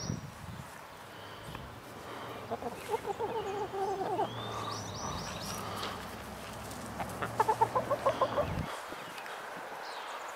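Hens clucking in two runs of quick clucks, one about two and a half seconds in and a louder one about seven seconds in.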